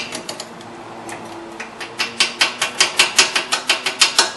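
Quick metal-on-metal hammer taps, about five a second, on a rusted-in cotter pin in a ball joint castle nut, trying to knock it loose. The taps fade out early, then a steady run starts about two seconds in.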